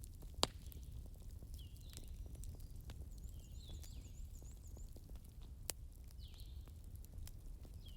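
Wood fire burning with a steady low rumble and scattered crackles, two sharp pops standing out, about half a second in and near six seconds. Faint chirping calls sound now and then over it.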